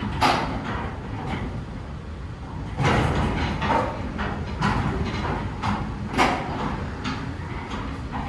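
Mechanical car park machinery running: a steady low hum with irregular clanks and sliding rattles, the loudest about a third of a second, three seconds and six seconds in.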